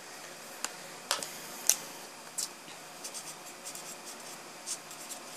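Felt-tip marker writing on spiral notebook paper: faint, short scratchy strokes, coming closer together in the second half.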